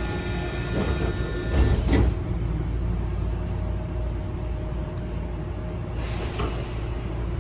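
Tobu 9000 series electric train running, heard from inside motor car Moha 9504, a steady rumble with faint steady tones from its Toyo Denki armature chopper control giving the normal chopper sound. A brighter hiss over the rumble drops away about two seconds in and comes back near the end.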